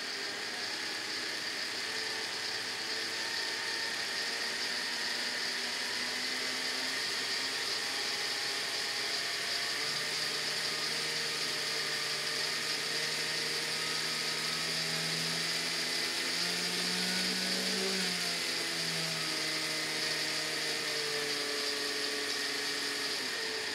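Homemade ion thruster running on its high-voltage supply, with corona discharge at the electrodes: a steady high hiss with faint low hums that drift in pitch, cutting off abruptly at the end.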